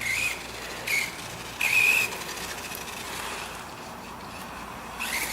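Hosim 1/12 rear-wheel-drive RC car's electric motor whining in three short bursts as the throttle is blipped, the loudest about two seconds in.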